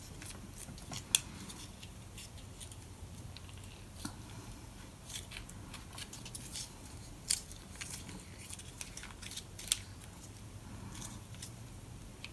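Faint crinkling and scattered sharp clicks of an MRE peanut butter pouch being handled, torn open and squeezed out onto bread. The loudest clicks come about a second in and again near the end.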